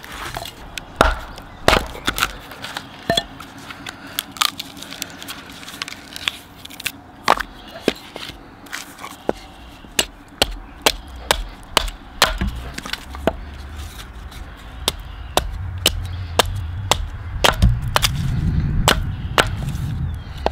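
Beavercraft AX-1 carving axe chopping and hewing a pine blank against a wooden chopping stump: many sharp, irregular strikes, about one or two a second, with a low rumble building over the last few seconds.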